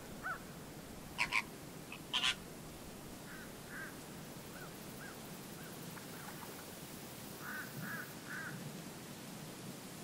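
Greater flamingos calling: two loud, harsh calls about one and two seconds in, then a scatter of quieter short calls, with three in quick succession near the end.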